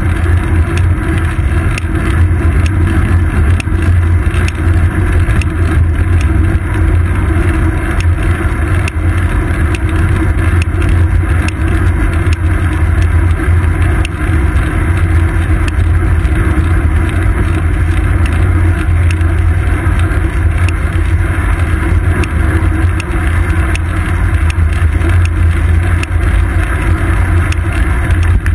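Steady, loud low rumble of a road bike rolling over asphalt, picked up as vibration through a seat-post-mounted GoPro Hero 2 and its housing, with faint ticking clicks throughout.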